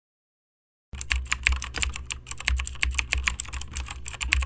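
Keyboard typing sound effect: a quick, uneven run of key clicks starting about a second in, laid under text typing onto the screen.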